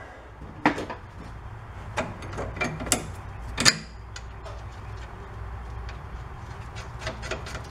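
Scattered metallic clicks and knocks of shock-absorber mounting hardware being handled and fitted by gloved hands at the lower axle mount, over a steady low hum.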